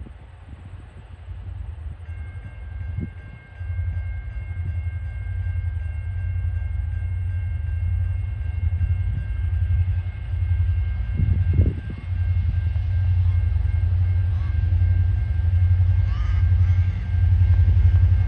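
Diesel locomotive 2054 hauling a TasRail coal train on approach. Its engine's deep rumble grows steadily louder as it nears, with a faint steady high-pitched whine from about two seconds in.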